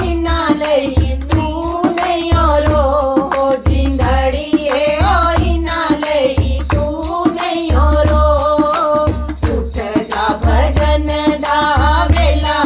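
Devotional bhajan music: a melody carried over a steady, even percussion beat with deep drum thumps and crisp high strokes.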